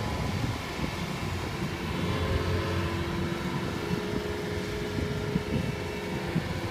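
Kubota crawler combine harvester running, its diesel engine a steady low drone as the tracked machine drives through a flooded rice paddy, with a faint steady whine through the middle.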